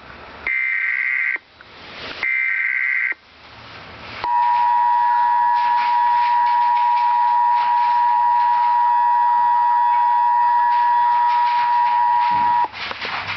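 Emergency Alert System broadcast signal: two short bursts of the SAME digital header, a harsh buzzing data screech about a second each, then the EAS two-tone attention signal, a loud steady dual tone held for about eight seconds that cuts off near the end.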